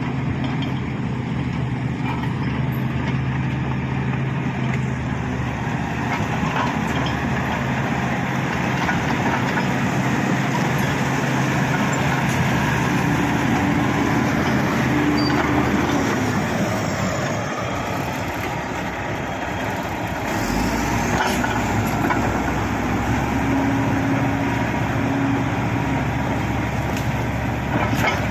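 Shantui SD16 crawler bulldozer's diesel engine running continuously, its pitch shifting up and down a little.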